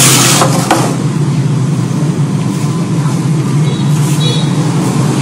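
Steady low engine hum running without let-up. A brief loud rustling burst comes at the start, with a smaller one just under a second in.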